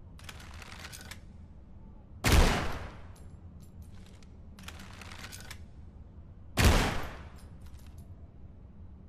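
Impala Gravita bow gun shooting twice, about four seconds apart, each shot a sharp bang with a short ring-out. Between the shots come stretches of quieter clicks and rattles from handling the gun.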